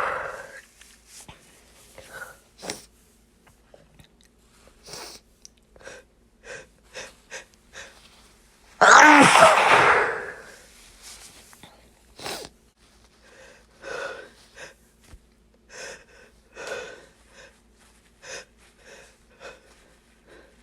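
A person sneezing into a tissue: the tail of one sneeze right at the start, then one full loud sneeze about nine seconds in with a falling voiced cry. Between and after, many short sniffs and catching in-breaths of sneezes that build but won't come out.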